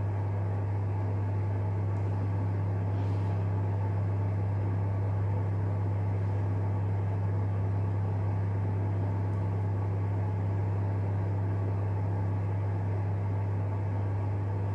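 Steady low hum with a faint hiss.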